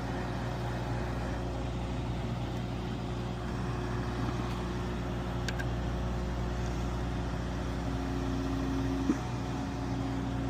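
Boom lift's engine running steadily while it powers the boom's hydraulics, with a faint steady whine coming in near the end and a single click.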